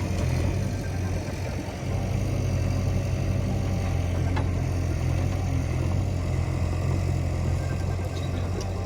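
Bulldozer's diesel engine running steadily, a low drone with a few faint clicks.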